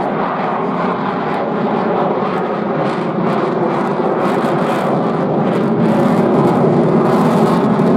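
Jet noise from an RAF F-35B Lightning's single Pratt & Whitney F135 turbofan as the fighter flies its display. It is a steady, loud rush that grows slightly louder near the end.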